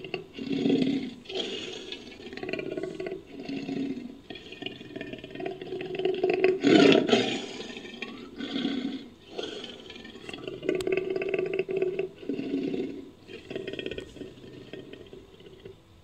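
Made-up sound effects for the extinct American lion: a long run of short big-cat roars and growls, one after another, the loudest about seven seconds in. The calls stop just before the end.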